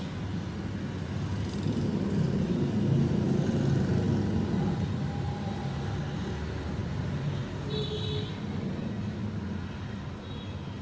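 Steady low background rumble that swells a little a few seconds in, with a short pitched sound about eight seconds in.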